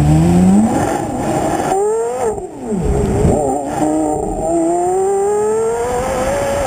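Porsche Carrera GT's 5.7-litre naturally aspirated V10, heard right at the exhaust outlet, accelerating hard: its pitch climbs, drops once about two and a half seconds in, then climbs steadily again.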